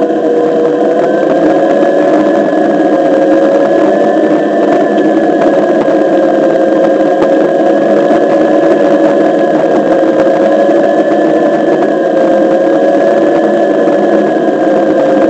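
Onewheel+ XR hub motor whining steadily as the board rolls along, its pitch drifting a little up and down with speed, over a rough hum of the tyre on asphalt.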